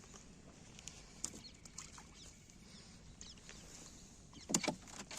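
Faint chirping of small birds with scattered light clicks. A sharper double knock comes near the end.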